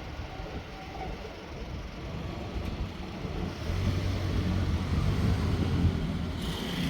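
Road traffic: a motor vehicle's engine hum grows louder from about halfway through, over a low steady rumble.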